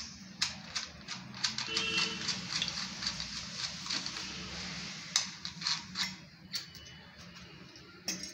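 Sink strainer basket being unscrewed and pulled apart by hand: irregular clicking and rattling of its metal and plastic parts, with a few sharper clicks past the middle.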